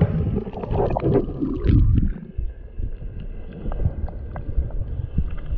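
Sea water moving around an action camera: loud low sloshing and rumbling for about two seconds, then suddenly quieter, a low wash of small waves with a few light ticks.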